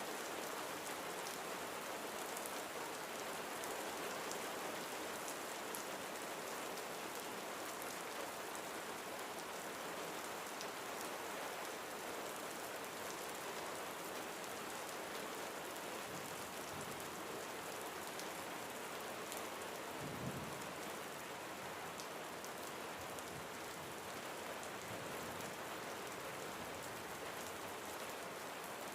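Steady rain falling, an even hiss with scattered drop ticks. A brief low rumble comes about two-thirds of the way through.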